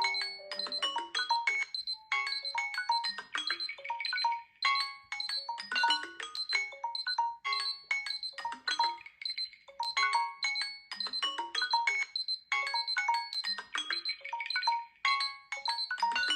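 Smartphone alarm tone ringing: a chiming melody of short, bright, mallet-like notes, looping in phrases every few seconds.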